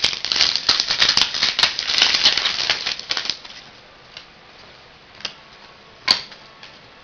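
A foil trading-card pack wrapper being torn open and crinkled, a dense crackle for about three seconds, followed by a few single snaps as the cards are handled.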